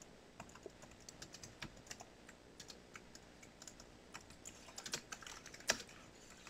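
Faint typing on a computer keyboard: irregular key clicks, coming a little faster and louder about five seconds in.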